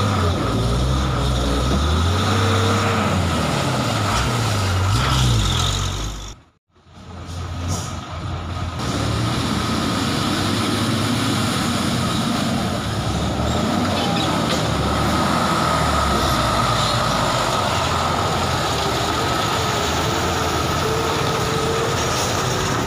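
Diesel engines of heavy Mitsubishi trucks labouring through deep mud, the engine note rising and falling for the first six seconds. The sound cuts out briefly at about six and a half seconds, then engine running resumes at a steadier pitch.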